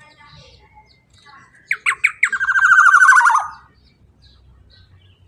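Black-naped oriole (kepodang) calling: three quick down-slurred notes about two seconds in, then a loud, harsh, rapid rattling call lasting about a second that drops in pitch at the end, with faint chirps before and after.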